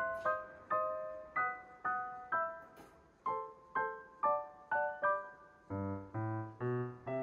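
Background music: a gentle piano tune of single struck notes, about two a second, each fading away, with lower bass notes joining about six seconds in.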